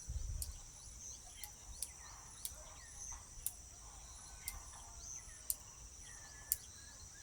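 Steady high-pitched insect trill, with sharp ticks about once a second and a few faint bird calls in the middle. A short low rumble comes right at the start.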